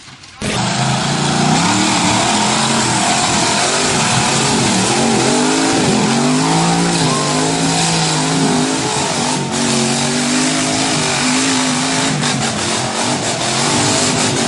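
Off-road 4x4 vehicle's engine revving hard, its pitch rising and falling repeatedly, starting suddenly about half a second in.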